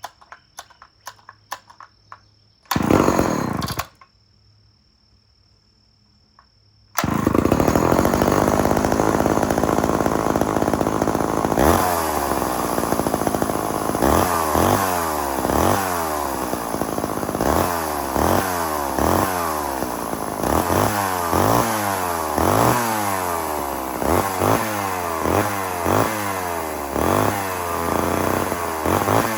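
Homelite Super XL two-stroke chainsaw being started: a short loud burst about three seconds in, then a few seconds later it catches and runs steadily. From about halfway it is revved again and again, the pitch rising and falling about once a second.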